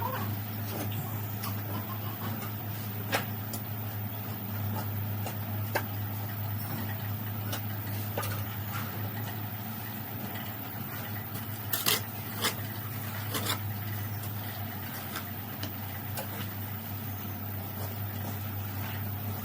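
A steady low hum with scattered light clicks and a few sharper knocks, two of them close together about twelve seconds in.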